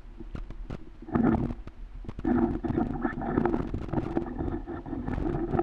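Muffled crunching and scuffing of a climber moving through deep snow, with a few sharp knocks in the first second.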